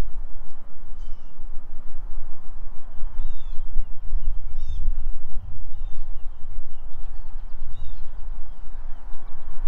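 Wind buffeting the microphone in a loud, uneven low rumble, with small birds giving short high chirps again and again throughout.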